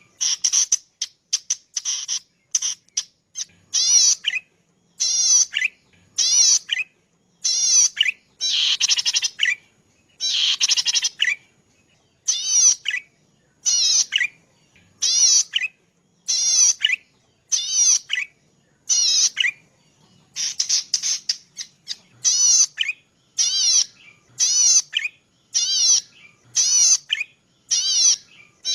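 Cici padi (a small rice-field warbler) singing a run of short, buzzy trilled phrases, each a fast zigzag warble, repeated about once a second with brief pauses between them.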